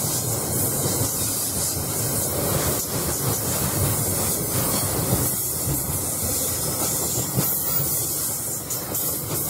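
Freight train's container wagons rolling past on the rails: a steady rumble of steel wheels on track.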